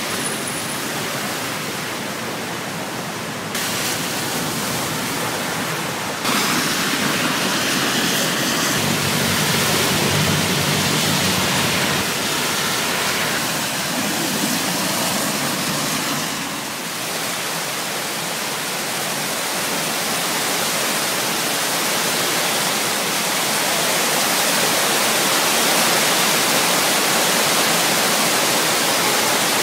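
Steady rush of heavy rain on a city street, mixed with tyres hissing through standing water as traffic drives by.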